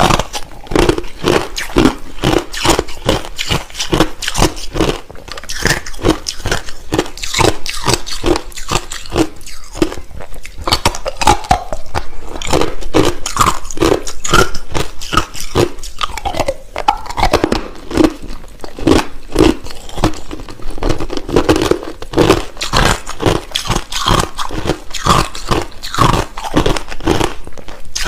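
Clear, hard crushed ice being bitten and chewed close to the microphone: a rapid, steady run of sharp crunches, about three a second.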